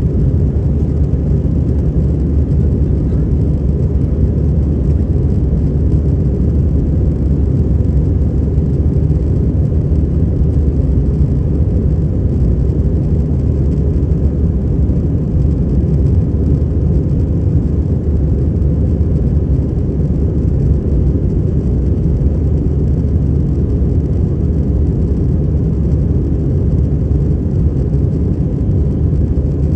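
Steady low rumble inside an airliner cabin: engine and air-conditioning noise, unchanging.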